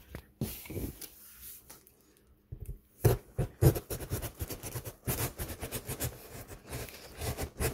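Cardboard box being opened by hand: irregular scraping, rustling and knocking of cardboard, with a brief lull about two seconds in. The sharpest knocks, about three seconds in, are close to the microphone.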